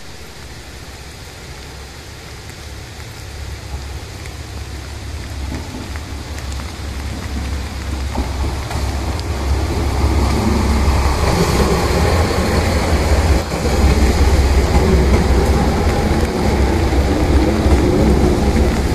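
Two-car JR Shikoku 1500-series diesel railcar train pulling into the station, its engine rumble and wheel noise steadily growing louder over the steady hiss of heavy rain.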